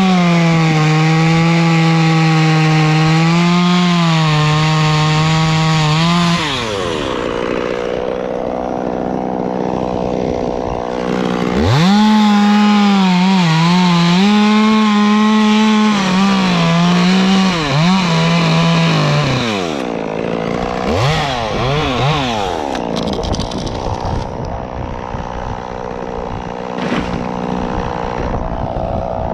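Two-stroke chainsaw cutting wood at full throttle for about six seconds, its note wavering and sagging under load before dropping to idle. It cuts again from about twelve seconds in, sags and stops near nineteen seconds, then gives a few short revs and runs on more quietly.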